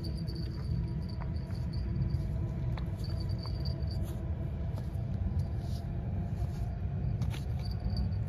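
Train crossing a steel railway bridge: a steady low rumble with faint steady tones above it.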